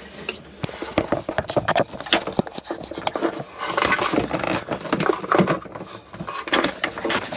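Irregular knocks, clicks and rustling of handling: hands and the camera brushing and bumping against hard surfaces.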